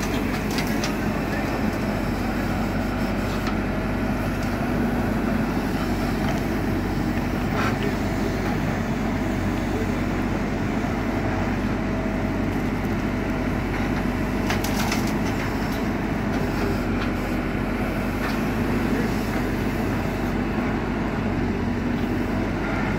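JCB 4CX backhoe loader's diesel engine running steadily under work, with a few short knocks and clicks, the plainest about fifteen seconds in.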